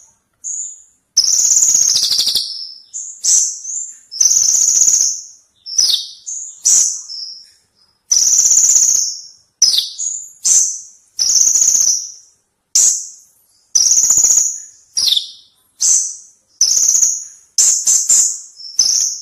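Kolibri ninja sunbird singing: a string of short, high chirps and rapid twittering phrases, one every second or so with brief pauses between, some notes sliding downward. It is a loud, close recording used as 'gacor' master song for training cage birds.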